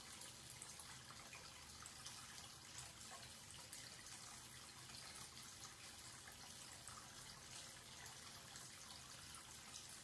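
Faint, steady stream of tap water from a wall-mounted spout running into a washbasin and down the open drain.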